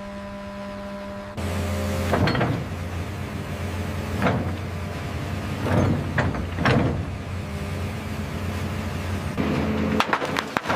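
After a steady hum in the first second or so, an excavator engine runs low and steady while a hydraulic breaker hammer strikes the ground in four heavy blows, one to two seconds apart. Near the end comes a rapid crackling and snapping of concrete breaking under a demolition grapple.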